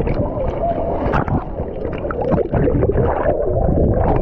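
Water heard from under the surface through a GoPro's waterproof housing: muffled churning and gurgling bubbles, with scattered small clicks.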